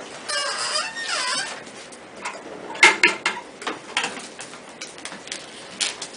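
Chiropractic adjustment: two short squeaks, then about three seconds in a sharp crack, the loudest sound, followed by several lighter pops and clicks.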